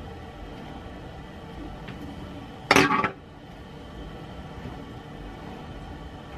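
A short clatter of a small object knocking against a ceramic bathroom sink, about three seconds in, over a steady low background hum.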